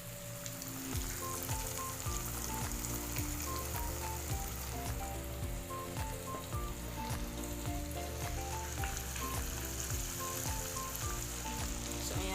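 Breaded chicken pieces deep-frying in hot oil, with a steady sizzle, under background music that has a melody and a regular beat.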